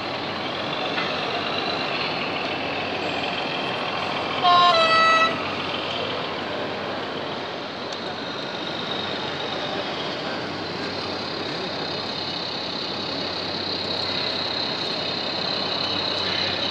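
A model railcar's horn sounds once, loud and short, for under a second, in two notes with the second a little lower, over the steady background noise of the exhibition hall.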